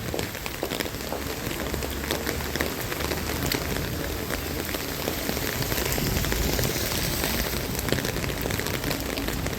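Heavy rain pouring down, a dense hiss peppered with many sharp close drop hits. A low rumble swells for a while about six seconds in.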